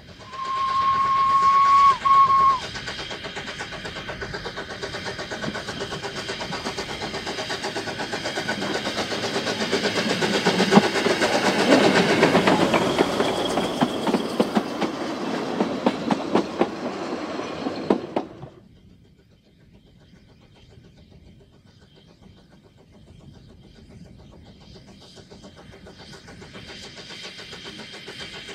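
Narrow-gauge steam locomotive sounding its whistle in one steady blast of about two seconds with a short break near its end, then the train passing close: exhaust and carriage wheels clattering over the rail joints, loudest past the middle. About 18 seconds in the sound drops suddenly to a faint, slowly building rumble of a train approaching from afar.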